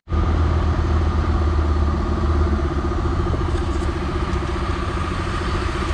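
Heavy diesel engine idling steadily with a deep, even hum.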